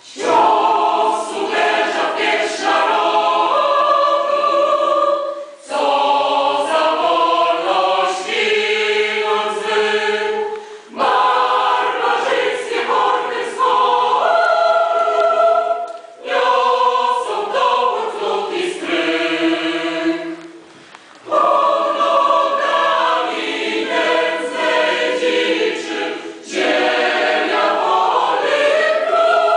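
Mixed choir of women's and men's voices singing a classical choral piece, in long phrases of about five seconds each with short breaks between them.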